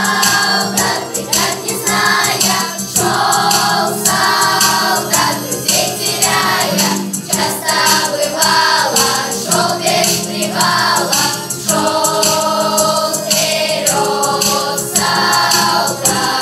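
Children's choir singing a song in sung phrases over a steady accompaniment.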